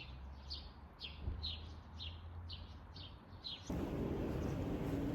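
A bird chirping over and over, about two short falling chirps a second. Near the end the chirps stop abruptly and a steadier, louder background noise with a low hum takes over.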